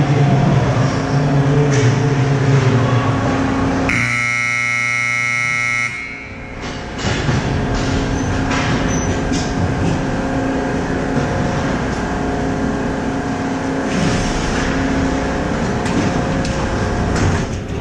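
An ice-rink scoreboard horn sounds once, a single steady buzzing blare lasting about two seconds a few seconds in. It stands over the steady noise of the arena.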